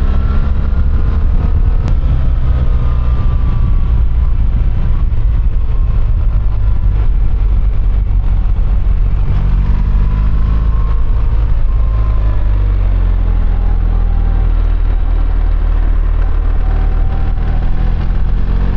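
BMW R1300GS boxer-twin engine running while riding, its revs falling through the middle and rising again near the end, over a heavy, steady rumble of wind and road noise.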